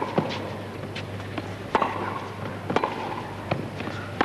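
Tennis rally: a ball struck back and forth with racquets, sharp pops of racquet strings and ball bounces coming about once a second.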